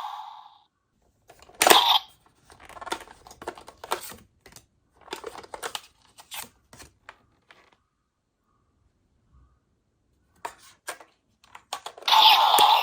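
Plastic toy transformation belt (DX Neo Decadriver) being handled: sharp plastic clicks and short rattling, scraping noises, a pause of a couple of seconds, a few more clicks, then the belt's electronic sound effect starts playing loudly near the end.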